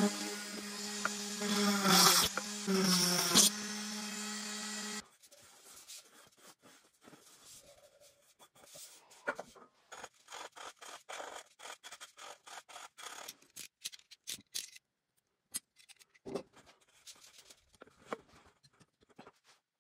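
Dremel rotary tool running with a steady whine while cutting holes in the top of an aluminium drink can; it cuts off about five seconds in. Then come rapid scratchy strokes of sandpaper rubbed over the can's rim, and near the end a few scrapes and taps as the can is handled against a blade jig.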